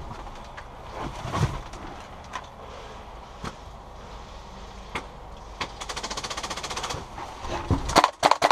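Airsoft guns firing on the field: scattered single shots, then a rapid automatic burst lasting about a second and a half, then louder shots near the end.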